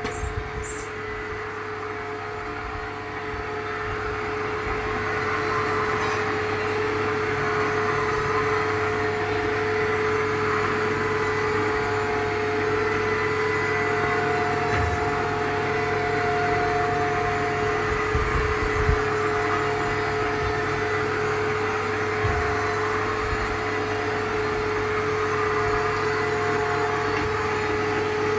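A machine running steadily: a continuous motor hum with a few steady tones over an even whirring noise.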